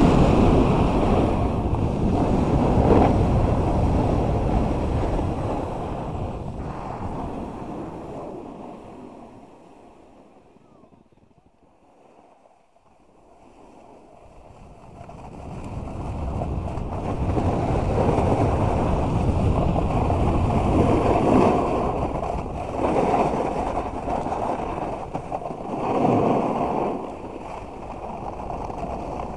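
A snowboard's base and edges sliding and scraping over packed snow, with wind rushing on the microphone, while riding downhill. The rush fades almost away about ten seconds in, then builds back up, with a few louder surges of scraping near the end.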